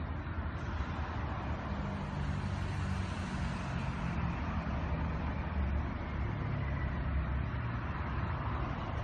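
Steady low rumble of road traffic, with a vehicle's engine hum standing out between about two and four seconds in.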